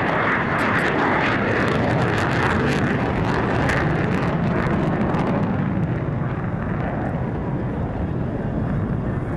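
Loud jet noise from a two-seat F-15DJ Eagle's twin turbofan engines in afterburner as it makes a fast pass, crackling sharply through the first half. The noise eases a little after about six seconds.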